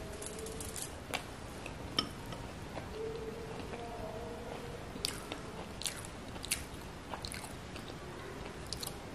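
Close-miked mouth sounds of chewing soft idli soaked in sambar: short, wet smacking and squishing clicks scattered throughout.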